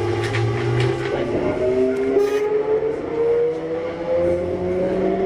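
Kintetsu 1021 series train's Hitachi GTO VVVF inverter and traction motors whining, the pitch rising slowly and steadily as the train gathers speed, with a low hum beneath and a few light clicks early on.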